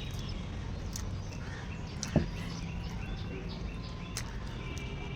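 Birds chirping repeatedly over a low background hum, with one sharp knock about two seconds in.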